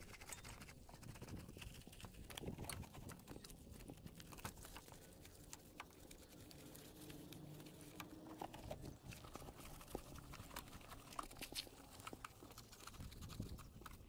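Faint wiping and rubbing of a wet cloth over foam-covered motorcycle parts, with many small scattered clicks and crackles.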